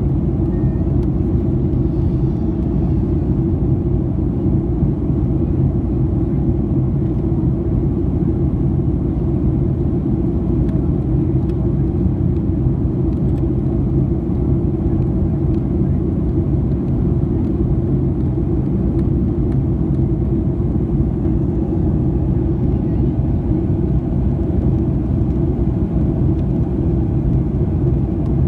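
Boeing 737-800 airliner's steady low rumble of engine and airframe noise, even throughout with no changes.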